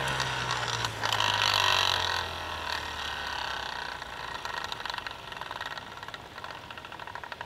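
Deer feeder's battery-powered spinner motor running on a timer test, its hum slowly dropping in pitch and dying away over the first three to four seconds. A brief rustle about a second in.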